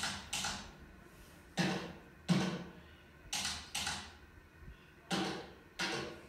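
Jazz drum kit playing alone: about eight separate drum and cymbal strikes at uneven intervals, each dying away quickly, with short quiet gaps between.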